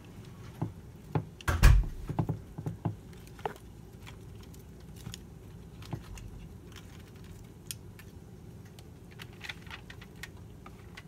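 Wooden chopsticks clicking and knocking against a plate and the grilled cuttlefish pieces as they are moved about: a cluster of knocks in the first few seconds, the loudest about two seconds in, then scattered light clicks.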